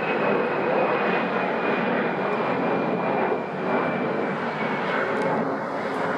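Airbus A319-112 jet airliner's CFM56 turbofan engines at climb power, a steady roar with a thin high whine that slowly drops in pitch as the aircraft climbs away.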